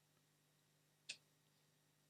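Near silence broken by a single short click about a second in: a 9-volt power plug being pushed into the DSO138 oscilloscope kit board's power socket.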